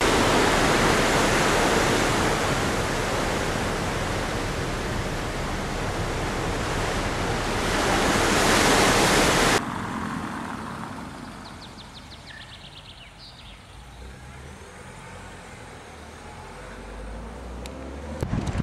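Loud steady rush of wind and sea over open water, cutting off abruptly about halfway through. Then a quiet outdoor background with a brief high, rapid trill of chirps.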